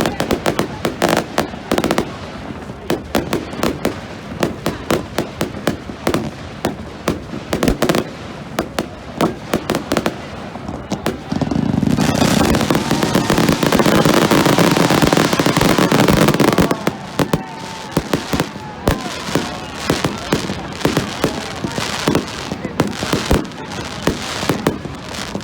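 Fireworks going off: a rapid, irregular stream of sharp bangs and crackles. About halfway through comes a few seconds of a louder, dense barrage, before the scattered pops resume.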